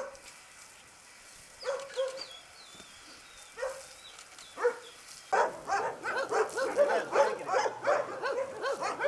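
Dogs barking: a few single barks, then from about five seconds in many dogs barking at once, overlapping thickly.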